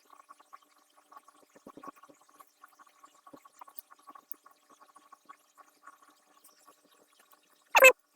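Faint, scattered light clicks and taps of small metal hex keys and parts being handled and fitted back into the folding holder. Near the end, a brief loud voice-like sound cuts in.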